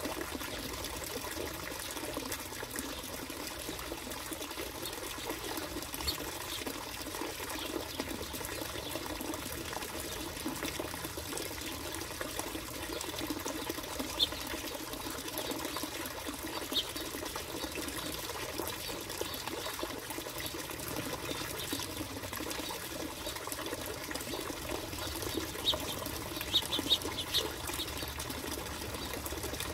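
Finches giving a few short, sharp chirps, single ones at first and then a quick run of them near the end, over a steady rushing background noise.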